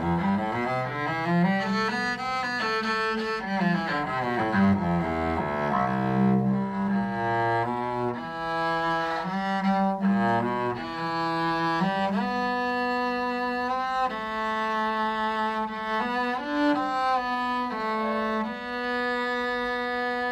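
Solo cello bowed with an Arcos bow made in Brazil. Quick runs of notes climb and fall over the first several seconds, then give way to slower, longer notes, ending on a long held note.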